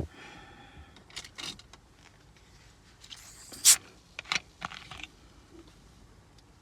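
A cold Pepsi being opened: clicks and handling noises, then a building hiss that ends in one loud sharp crack and fizz about three and a half seconds in, followed by a few more clicks.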